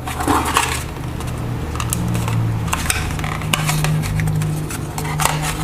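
Hands working at stiff packaging to free a Bluetooth headset: a string of irregular clicks and clatter from handling the packaging, over a steady low hum.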